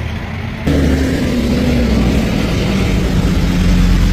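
Heavy truck engine running steadily as vehicles drive through floodwater, its pitch sinking slightly, over a low rumble and a steady hiss. The sound cuts in suddenly under a second in, louder than the vehicle and street noise before it.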